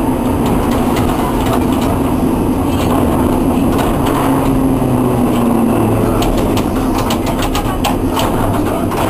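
Historic tram running on street track, heard from inside the cab: a steady rumble of wheels on rail with a low hum and scattered clicks.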